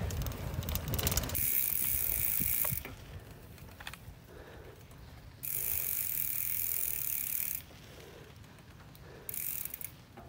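Mountain bike's rear freewheel hub buzzing with rapid ratchet clicks while the rider coasts. It comes in three stretches: about a second and a half in, a longer one of about two seconds in the middle, and a short one near the end.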